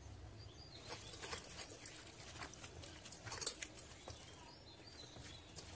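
A hand mixing raw beef with masala, onion and water in a steel pressure cooker pot: faint, irregular wet squishing with small clicks, one louder about three and a half seconds in.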